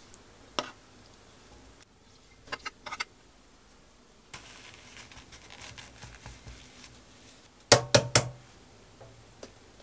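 Kitchen utensils clicking and scraping against a white ceramic bowl as sticky glazed daechang pieces are spooned in and arranged, then three quick, loud knocks close together about eight seconds in.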